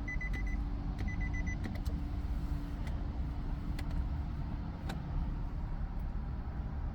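Nissan 370Z's electronic warning chime beeping rapidly in two short bursts, then a few faint clicks and no cranking: the car won't start because its battery is dead.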